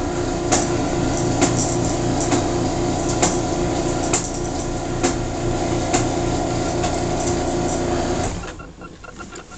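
Craftsman half-horsepower garage door opener running through a closing cycle: a steady motor hum with a regular click about once a second, stopping about eight seconds in as the travel ends.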